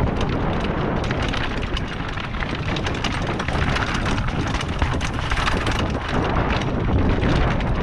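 Mountain bike rolling fast down a rocky, gravelly trail: tyres crunching over loose stones and the bike rattling with dense quick clicks over the rock, with wind buffeting the microphone.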